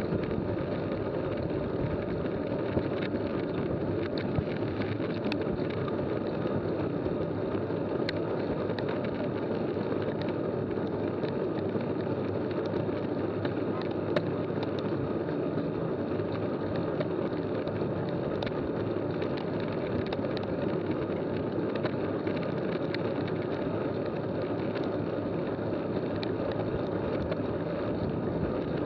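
Steady rushing of wind on the microphone and tyre noise from a mountain bike riding in a tight pack on asphalt at about 24 km/h, with faint scattered clicks.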